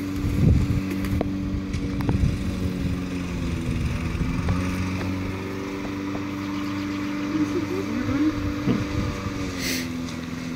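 A steady engine drone, its pitch dipping slightly near the end, with a couple of sharp knocks in the first two seconds.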